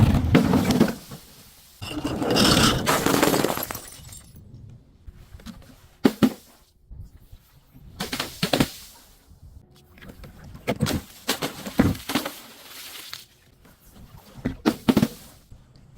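Brittle objects being crushed and breaking, crunching and cracking in about six separate bursts, the longest two in the first four seconds and a short sharp crack about six seconds in.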